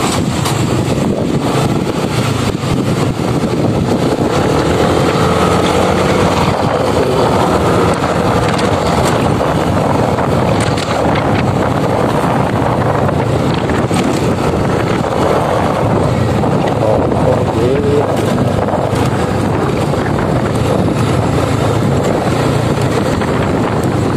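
Motorcycle running at riding speed, its engine partly buried under heavy, steady wind noise on the microphone.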